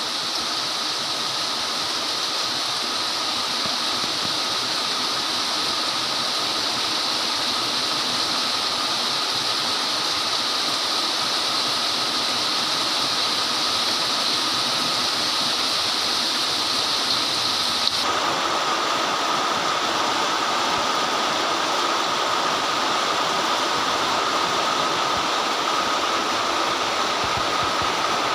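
Very heavy, torrential rain pouring down steadily. About two-thirds of the way through, the sound changes abruptly, losing some of its high hiss and gaining a fuller middle.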